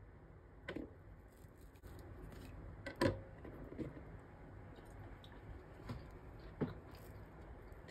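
Soft handling noises as a slice of cake is lifted off a wooden board with a knife and held up: four scattered short taps and clicks over a faint hiss, the sharpest about three seconds in.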